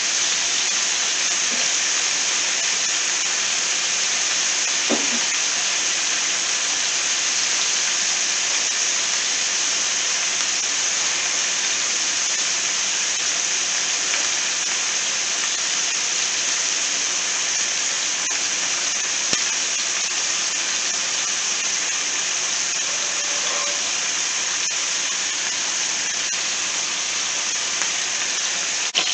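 Cubes of chicken frying in oil in a skillet, a steady sizzle.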